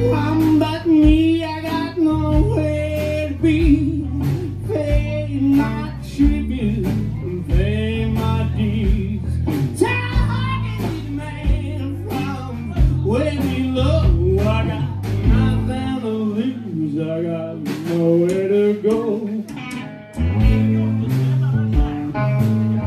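Live blues-rock band playing an instrumental passage: an electric guitar lead with bent notes over bass guitar and drums. The bass and kick drum drop out briefly about two-thirds of the way through.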